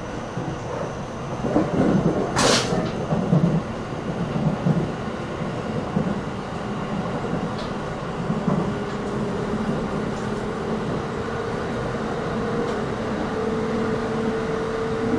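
Electric train running slowly, heard from inside the car: low rumble with irregular wheel knocks over the track, and one sharp knock about two seconds in. From about eight seconds a steady motor hum sets in under the running noise.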